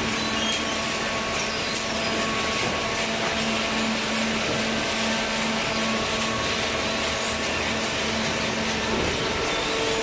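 Waste-paper baler and its feed conveyor running: a steady mechanical hum and hiss with a low held tone, which gives way to a higher tone near the end.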